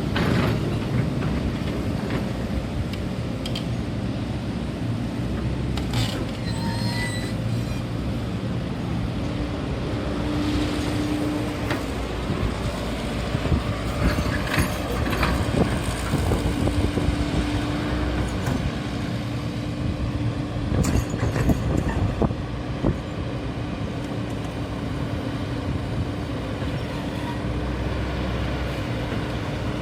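Hydraulic excavator working: the diesel engine runs steadily with a hydraulic whine that comes and goes, and a few sharp knocks and clanks, several of them in the middle stretch.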